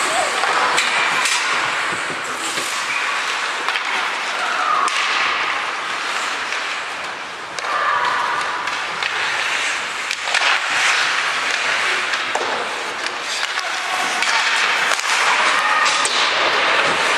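Ice hockey play: skates scraping across the ice, with knocks of sticks and puck and short calls from young players.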